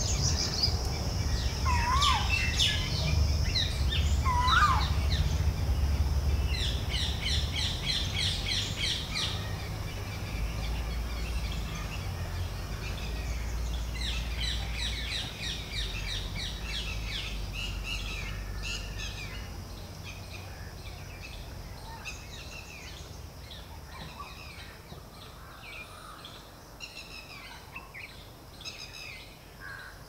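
Wild birds chirping and calling in quick runs of repeated high notes, over a low rumble that fades out about two-thirds of the way through.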